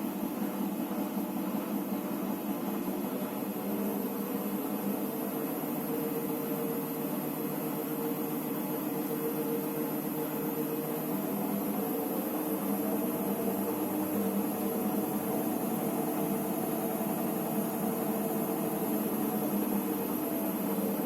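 Electrolux EWT 1377VIW washing machine running with a steady motor hum whose pitch drifts slowly up and down. It is the sound of a machine that fails to finish its cycle and keeps on spinning.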